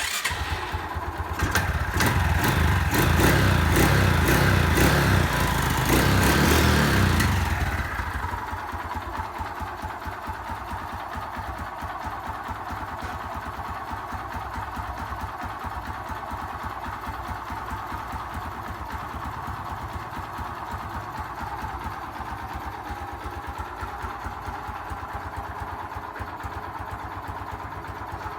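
Honda XRM 125's single-cylinder four-stroke engine starting, running louder with a rapid ticking for about seven seconds, then settling to a steady idle. The owner hears a noise from the engine that he suspects is a knock.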